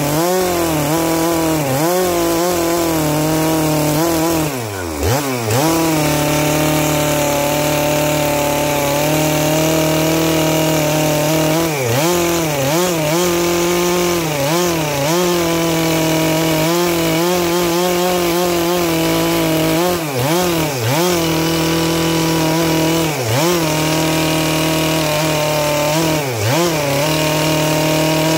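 Stihl MS 462 two-stroke chainsaw with a 25-inch bar running in a lengthwise rip cut through a dry Manchurian walnut log, the saw's own weight feeding the chain down into the wood. The engine note holds steady but dips in pitch and recovers again and again, deepest about five seconds in, as the chain loads up in the cut.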